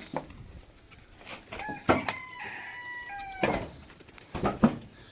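A rooster crowing once, a single held call lasting about a second and a half, with scattered knocks and clicks around it.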